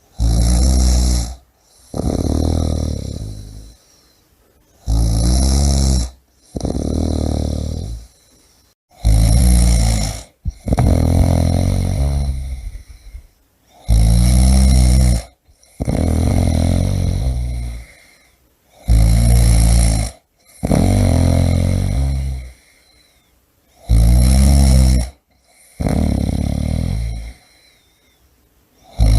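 A person snoring loudly and rhythmically. Each cycle, about every five seconds, is a short rasping snore followed at once by a longer one, with near silence between cycles.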